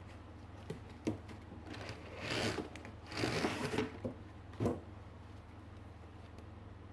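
Objects handled by hand: a few sharp clicks and knocks, and two short stretches of rustling or rubbing in the middle, over a steady low hum.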